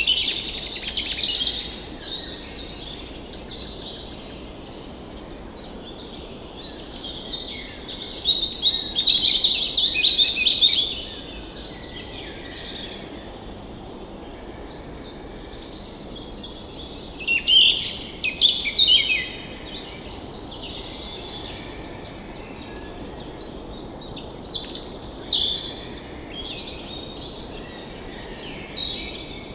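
Songbirds singing and calling in bursts every few seconds, over the steady rush of a forest stream.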